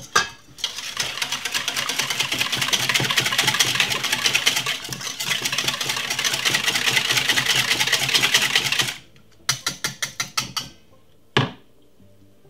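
Wire balloon whisk beating eggs and milk in a stainless steel bowl: a fast, steady run of metallic clicks as the wires strike the bowl. About nine seconds in it slows to a handful of separate taps, and near the end comes one sharp clink.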